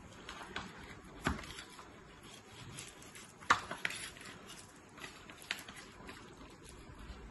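Kitchen knife sawing through a rolled flatbread wrap on a ceramic plate, with a few sharp clinks of the blade against the plate, the loudest about three and a half seconds in.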